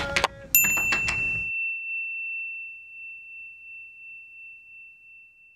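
A few sharp metallic clicks, then a single bright bell-like ding about half a second in that rings on one high tone and slowly fades over about five seconds while all other sound drops away.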